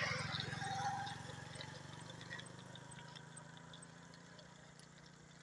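Motorcycle engine running as it passes close by, then fading away over the next few seconds.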